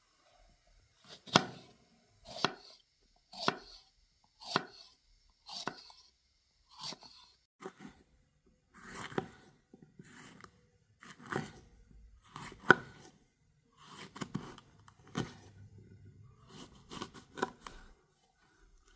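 Kitchen knife slicing a green bell pepper into strips on a wooden cutting board, each cut ending in a sharp knock of the blade on the board. The knocks come about once a second, evenly at first, then less regularly with some close pairs in the second half.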